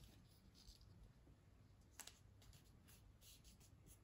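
Near silence: room tone with faint rustling of paper being folded by hand and a small click about two seconds in.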